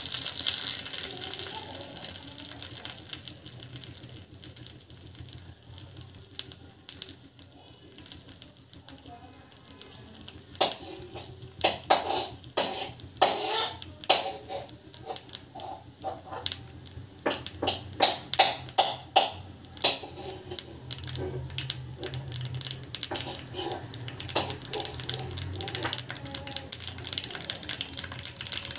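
Hot oil sizzling in a small tempering pan, with seeds frying in it. The oil starts as a steady hiss, then from about a third of the way in the seeds crackle and pop in quick runs of sharp snaps, thinning out toward the end.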